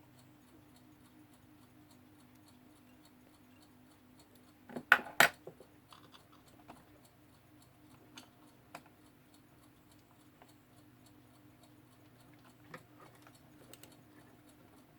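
Faint steady ticking of a Jakob Palmtag alarm clock's movement, with small handling clicks; two loud sharp clicks come close together about five seconds in.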